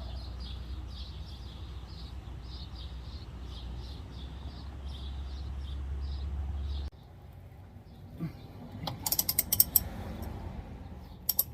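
A steady low hum with a faint high chirp repeating about three times a second, then, after an abrupt cut, a quick run of sharp metallic clicks and two more near the end, typical of a ratchet wrench working a bolt.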